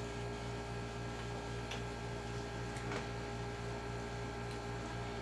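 Steady electrical hum, with a few faint clicks.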